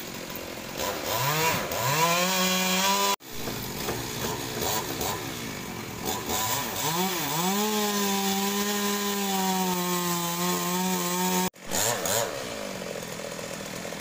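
Two-stroke chainsaw revving up to full throttle and held there, its pitch sagging and climbing again as it works through wood. The sound breaks off abruptly twice.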